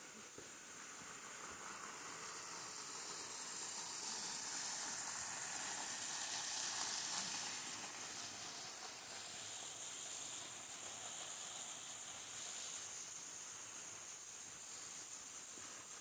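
Waterfall and mountain stream running: a steady rushing hiss that swells to its loudest around the middle, then eases off a little.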